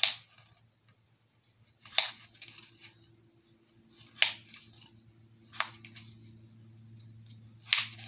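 Pencil tip pressing indentations into the edge of a small craft disc to mark out bricks: five sharp clicks, one about every two seconds, over a faint steady hum.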